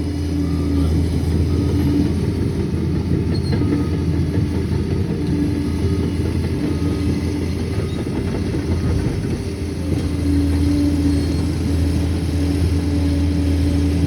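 Liebherr PR 746 crawler dozer's diesel engine running steadily with a low hum, over a continuous clattering rattle.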